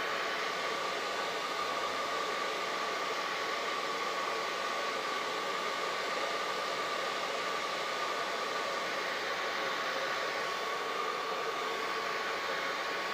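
Hair dryer running steadily: a continuous rush of blown air with a steady mid-pitched motor whine through it.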